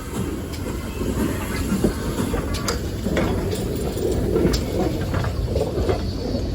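Train noise at a steam railway: a steady low rumble with scattered sharp clicks and a faint hiss.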